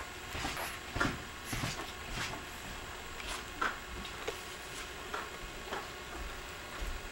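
Newborn baby's small grunts, snuffles and sucking noises, short and irregular, about once a second over a low steady background hiss.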